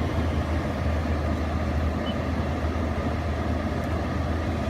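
A pickup truck's engine idling with a steady low hum.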